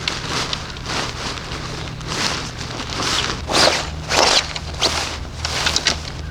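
Irregular rustling and scuffing swishes, about one or two a second, over a steady low hum.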